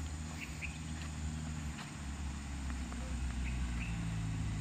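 A diesel engine running steadily with a low hum, its pitch shifting slightly a couple of times, and a few faint short high chirps over it.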